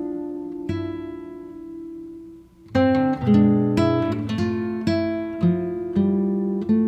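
Background music on acoustic guitar: plucked chords that ring out and fade, then a brisker run of plucked notes from about three seconds in.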